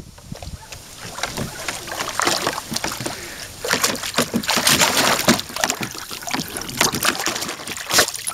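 Labrador pawing and splashing in the water of a plastic kiddie pool: irregular splashes and sloshing, busiest in the middle, with one loud splash near the end.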